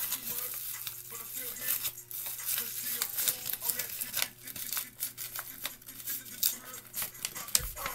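Paper crinkling and polyester stuffing rustling as stuffing is pushed into a taped paper squishy, a busy irregular crackle of many small sharp crinkles.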